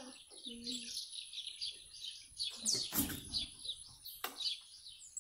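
Birds chirping busily, many rapid, overlapping high notes with no break. A brief rush of noise comes about three seconds in and a sharp click a second later.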